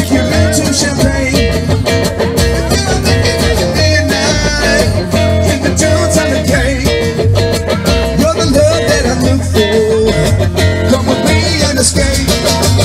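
Live band playing an instrumental passage: electric guitar and acoustic guitar over an upright double bass.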